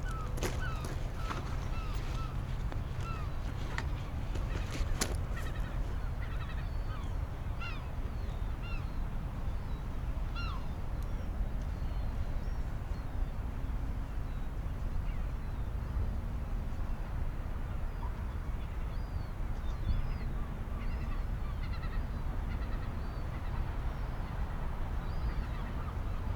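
Seagulls calling again and again in short, arching cries over a steady low rumble from the sea front, with a few sharp clicks in the first five seconds.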